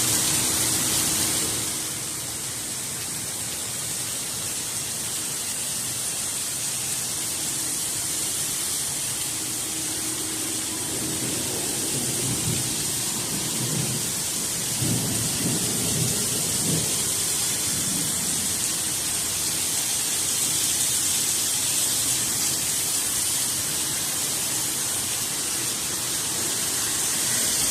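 Heavy rain pouring down in a steady, dense hiss during a thunderstorm, with low thunder rumbling about halfway through.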